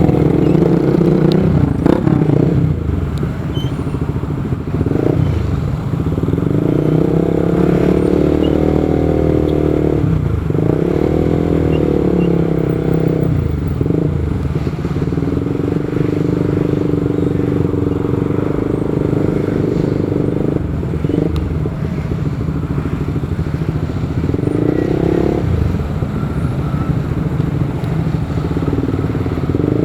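Motorcycle engine running while riding in city traffic, with road and wind rumble throughout. Its engine note swells and drops off in stretches of a few seconds as the throttle is opened and closed.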